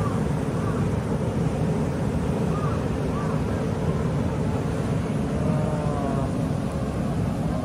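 Steady low rumbling outdoor noise, with faint voices of a crowd now and then.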